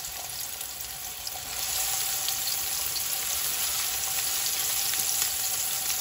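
Chopped onion and shallot sizzling in hot olive oil in a large metal pot, with a steady hiss and fine crackles as a spatula stirs them. The sizzle gets louder about a second and a half in.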